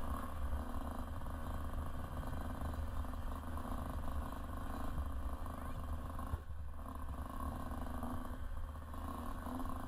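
Motocross bike engine running at low revs as the bike rolls slowly, a steady low rumble that eases off briefly about six and a half seconds in.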